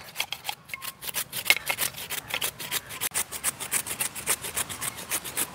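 Raw beetroot being grated by hand on a stainless-steel hand grater: rapid, even back-and-forth strokes, several a second, without a break.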